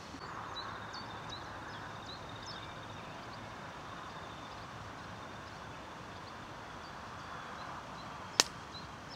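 Open-air ambience with birds chirping in short calls over a steady faint background noise, and one sharp click about eight seconds in.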